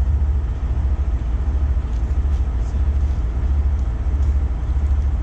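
Heavy diesel engine of a 50-ton rotator tow truck idling, a steady low rumble.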